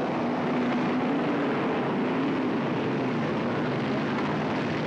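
Formula A (Formula 5000) race cars' Chevrolet V8 engines running past at low speed, a loud steady drone whose pitch rises and falls slightly.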